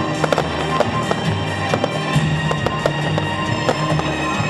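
Aerial fireworks bursting, with many sharp pops and crackles in quick succession, over loud show music with held tones.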